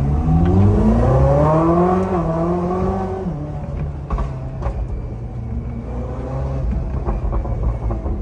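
Koenigsegg Jesko's twin-turbo V8 accelerating, its pitch climbing for about a second and held high for two more, then dropping back about three seconds in to steady low-rev running.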